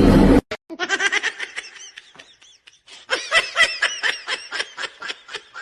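A loud noisy sound cuts off abruptly within the first half second, then a person laughs in bursts of quick, repeated giggles.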